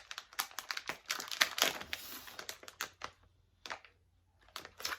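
Plastic snack packet of crispy corn nuts crinkling and crackling as it is handled, in irregular sharp crackles with a short lull about three seconds in.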